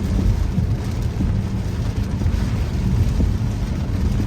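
Steady low rumble of a truck driving in heavy rain, heard from inside the cabin, with rain hitting the body and windshield.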